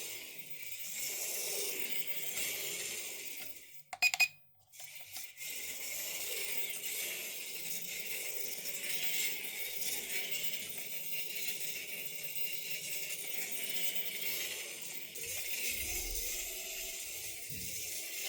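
Micro RC car running: a small electric motor and tyres give a steady hissy, rattling noise, broken about four seconds in by a brief gap with a few sharp clicks.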